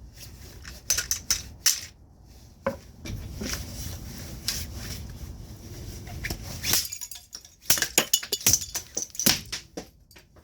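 Toy road roller being smashed: a string of sharp, clinking impacts at irregular intervals, a few scattered at first, then coming thick and fast in the second half.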